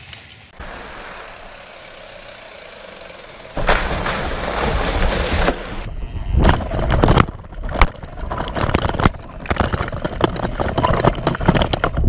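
Mountain bike riding fast down a dirt trail: wind rushing over the body-mounted camera and tyres rolling on loose ground, with frequent knocks and rattles from the bike over bumps. It starts quiet and turns loud a little over a third of the way in, and the knocks crowd in from about halfway.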